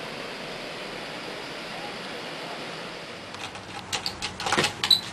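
Steady background hiss, then a cluster of clicks and knocks from the helicopter and transmitter being handled, starting about three seconds in and loudest near the end.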